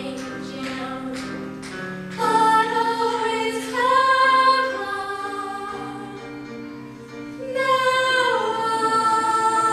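Two women singing together in a slow musical-theatre duet, holding long notes, over instrumental accompaniment. The voices swell again about three-quarters of the way through.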